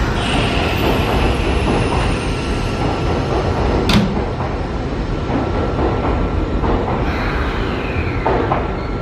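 A Semboku Rapid Railway 5000 series train's sliding doors closing, with one sharp knock about four seconds in, over a steady platform rumble.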